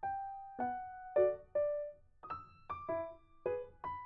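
Background piano music: notes and chords struck a few times a second, each ringing and fading away.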